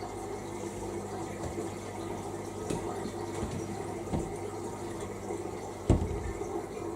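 Samsung Ecobubble washing machine taking in water, a steady hum with water running into the drum. A few light knocks, with a sharper one about six seconds in.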